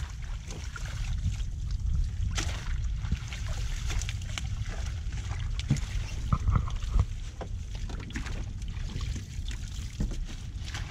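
A wet fishing net and water hyacinth being hauled and handled at the side of a small boat: rustling of mesh and leaves with water trickling and sloshing, and a few sharper knocks about two and a half seconds in and again near the middle, over a steady low rumble.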